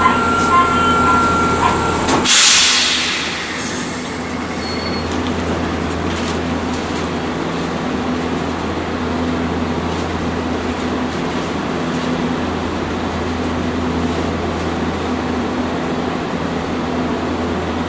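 Hiroshima Electric Railway 800-series streetcar heard from on board: a short, loud hiss of air about two seconds in, then steady, loud running noise with a low motor and gear hum.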